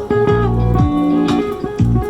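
Live band playing guitar-led music with a steady beat, without singing.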